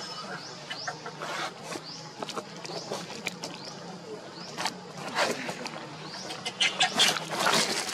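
Macaques calling with short, harsh squeals, loudest near the end, over a background of short, rising, high bird chirps repeated throughout.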